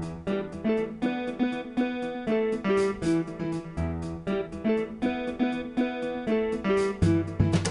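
Background music: plucked guitar with a bass line, several notes a second.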